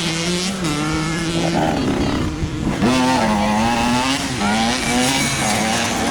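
Off-road race engines revving hard, the pitch climbing and dropping again and again with the throttle and gear changes, briefly easing off before picking up again about three seconds in.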